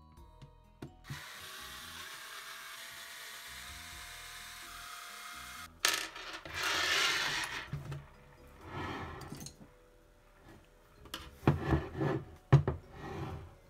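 A cordless drill-driver runs steadily for about five seconds, backing screws out of an e-bike mid-drive motor's cover. Louder irregular handling noise follows, and near the end come several sharp clicks and knocks as the cover is worked at with a small screwdriver.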